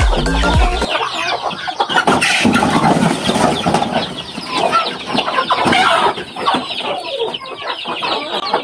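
Chickens clucking, many short calls overlapping. Background music cuts off about a second in.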